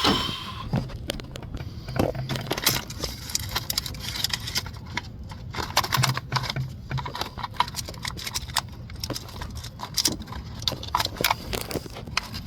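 Irregular clicks, scrapes and rustles of hands working a rubber vacuum hose onto the brake booster fitting at the intake manifold.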